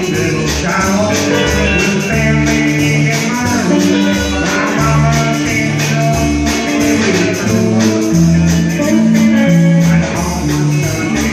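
Recorded country-rock music in an instrumental stretch: plucked guitar over a moving bass line and a steady beat.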